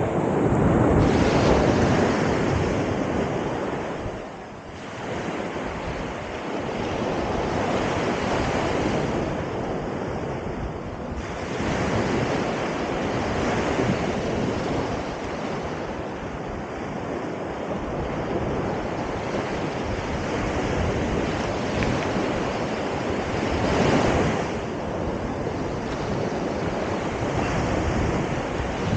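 Rushing wind and water aboard a sailing schooner, with wind buffeting the microphone. The noise swells and eases, with a short lull about four seconds in and another surge near the end.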